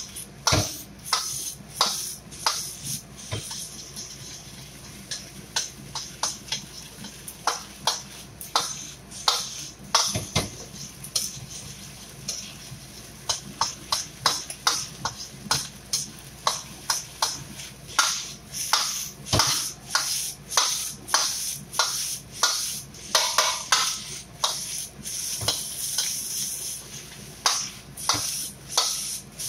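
Metal wok ladle scraping and clanking against a stainless steel wok as rice is stir-fried, in a quick, uneven run of strokes about one or two a second, over a faint sizzle.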